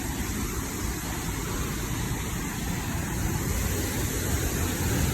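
Steady rush of a large waterfall close by: even, unbroken water noise with a heavy low rumble.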